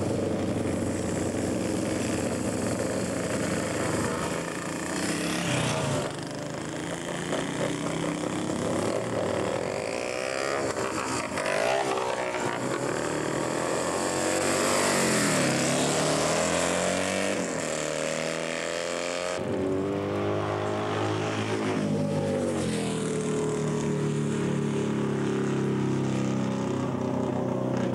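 Classic racing motorcycle engines at full throttle. The pitch rises as they accelerate and drops back at each gear change. About two-thirds of the way through, the sound changes abruptly to a steadier engine note that slowly falls.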